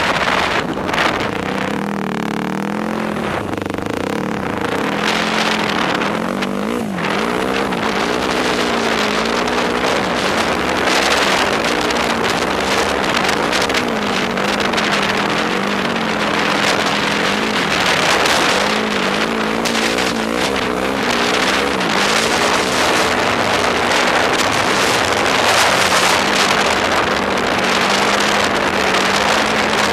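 Yamaha YFZ sport quad's engine revving up and down as it is ridden, its pitch rising and falling over and over, with air rushing over the microphone.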